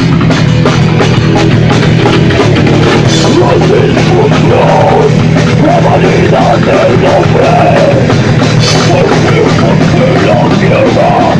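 A rock band playing loud, heavy rock, with a drum kit and guitars, and a wavering melody line coming in over it about four seconds in.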